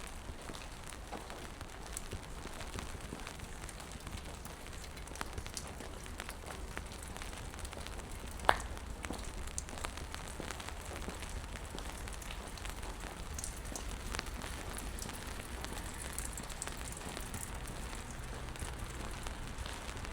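Rain falling on wet pavement: a steady hiss with scattered ticks of single drops, and one sharp click about eight seconds in.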